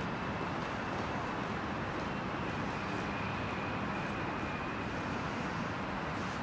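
Steady city traffic noise, an even hum of road traffic, with a faint thin high whine for a couple of seconds about halfway through.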